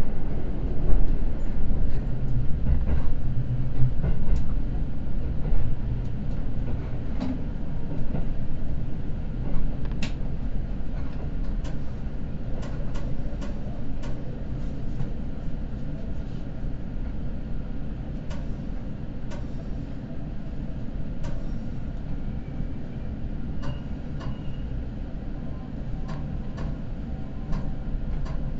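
Seibu Red Arrow limited express train heard from inside the car as it brakes into a station. The running rumble is strongest over the first few seconds, then eases to a lower, steady hum as the train stops, with scattered light clicks.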